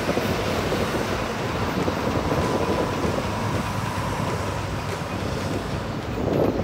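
Wind buffeting the microphone over the steady rumble of street traffic, with school buses and cars driving past. A faint steady whine rises out of the noise for a couple of seconds in the middle.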